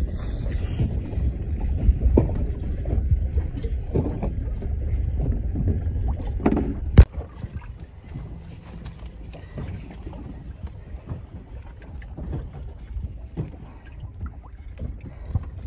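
Wind buffeting the microphone on an open boat, a steady low rumble with scattered knocks. About seven seconds in comes a single sharp, loud knock, after which it drops to quieter small knocks and rustles as a sheepshead is handled in a landing net on the deck.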